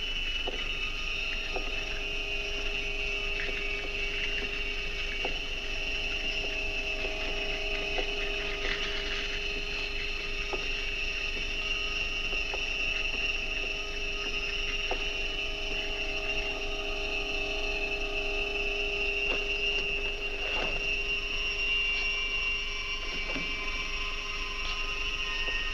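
A steady drone of several sustained tones, one low-middle, one higher and one high, held without a break, with faint scattered clicks.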